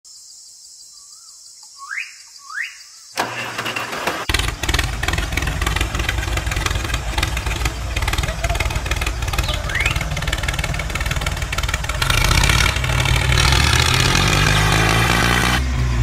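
A loud engine running, with its pitch rising gently near the end. It comes in suddenly about three seconds in, after two short rising whooshes.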